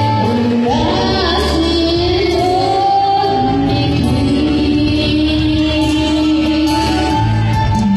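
A young girl sings a Christian song through a microphone and PA, with live instrumental accompaniment. The melody runs in long held notes that glide from one pitch to the next over a steady bass.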